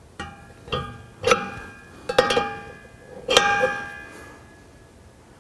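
A metal wrench clinking against a brass threaded fitting and the steel hose reel as the fitting is tightened a few turns: about five sharp metallic clinks that ring briefly, in the first three and a half seconds.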